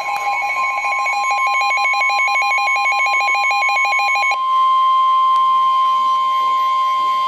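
NOAA Weather Radio warning alert tone, a single steady high beep near 1 kHz, sounding ahead of a National Weather Service severe thunderstorm warning broadcast. For the first four seconds a second electronic alarm overlaps it: a rapid pulsing beep that warbles between two pitches, then stops abruptly.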